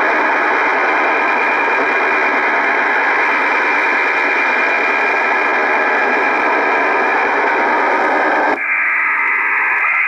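STANAG military digital data signal on shortwave, heard through an Icom IC-R8500 communications receiver: a loud, steady, dense rush of many data tones over hiss. About eight and a half seconds in the sound changes abruptly as the receiver is switched from AM to upper sideband.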